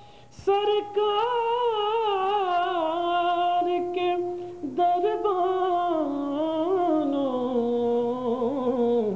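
A man singing a naat in Urdu with no instruments, drawing the word "sarkar" out into long ornamented notes with a wavering vibrato. After a short breath at the start, the melody slowly descends.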